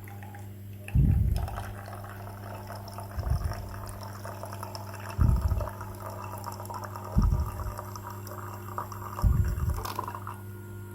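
Miniature toy washing machine running with water in it: a steady motor hum, with the water sloshing and a low thud about every two seconds as the drum churns.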